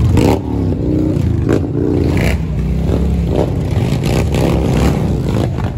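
Motorcycle engines revving over and over as several motorcycles ride slowly past, the pitch climbing and dropping with each blip of the throttle over a deep rumble.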